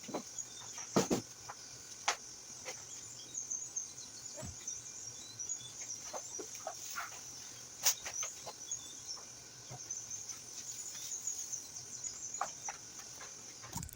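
Insects chirring steadily at a high pitch, with scattered sharp clicks and knocks over the top.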